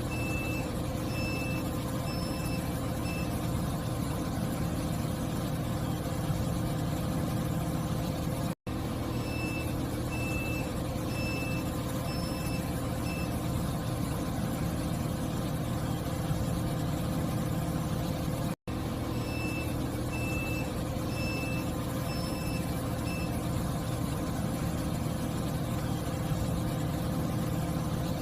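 XCMG truck crane running with a steady engine rumble, while its warning beeper sounds in bursts of about five short high beeps roughly every ten seconds.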